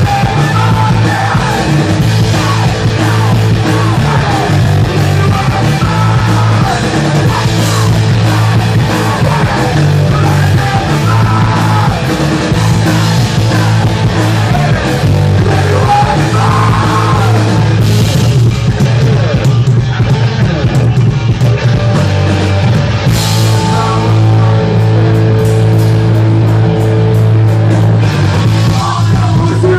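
Rock band playing live, loud amplified rock music without a break.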